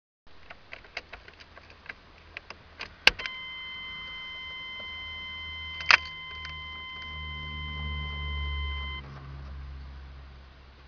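Cold start of a Chevy 6.5L turbo diesel: keys rattle and click, then a steady in-cab warning chime sounds from about three seconds in for about six seconds. From about six seconds the engine cranks over with a low drone that swells and then eases off near the end.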